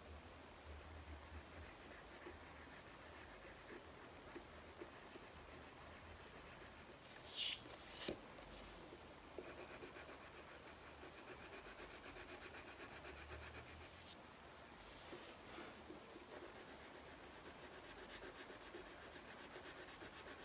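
Faint scratchy rubbing of coloured pencils shading on paper, with a couple of brief clicks near the middle.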